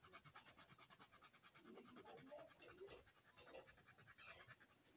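Colored pencil scribbling across a coloring-book page in quick, even back-and-forth strokes, faint and scratchy.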